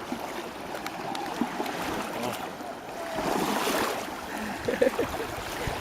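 Lake water lapping and sloshing at the shoreline, a steady wash with a few faint distant voices.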